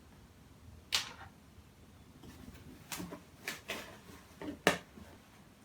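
Handling noise from unpacking: a few sharp clicks and taps of small plastic parts being picked up and set down, one about a second in and a quicker cluster near the end.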